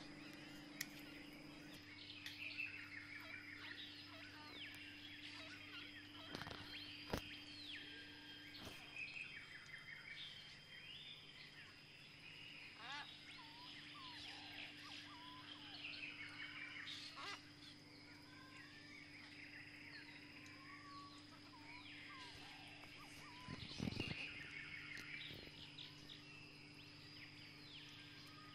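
Faint birds chirping and twittering throughout, over a steady low hum, with a few sharp clicks, the loudest about 24 seconds in.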